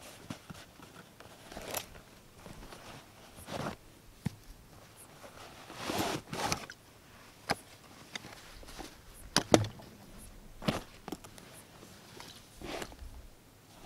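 Canvas rucksack being opened and unpacked by hand: straps and buckles undone, canvas and cloth rustling, and a cloth bag pulled out, with scattered small clicks and knocks. The longest rustle comes about six seconds in, and the sharpest click a few seconds later.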